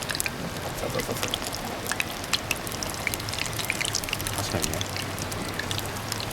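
Cooking oil sizzling in a pan as food fries, with a steady hiss and many small irregular crackles and pops.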